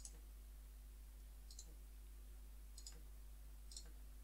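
Four faint computer mouse clicks, about a second apart.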